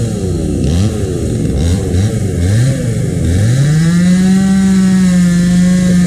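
Two-stroke chainsaw revving up and down in quick blips, then climbing about three seconds in to full throttle and held there, steady and high.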